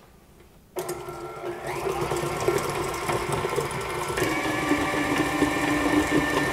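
KitchenAid stand mixer switched on about a second in, its motor running with a steady whir as the paddle attachment beats warm poached chicken thighs into shreds. The motor note shifts about four seconds in.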